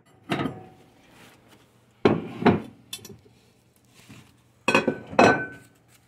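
Ceramic dinner plates knocking and clinking as they are handled and set down: about five sharp knocks, mostly in pairs a couple of seconds apart, the last one leaving a short ring.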